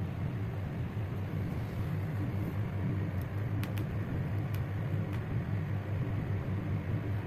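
A steady low rumble, with a few light clicks about halfway through.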